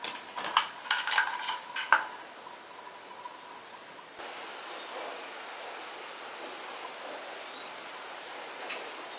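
Glass microscope slides clicking and clinking against each other and their plastic slide box as they are handled: about half a dozen sharp clicks over the first two seconds. After that there is only a faint steady hiss, with one small click near the end.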